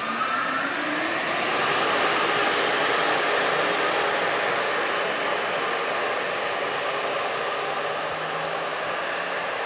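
Amtrak Acela Express power car pulling away under power: its traction motors whine up in pitch at the start over a steady rush of blower and rolling noise, which swells for about two seconds and then slowly fades as the train leaves.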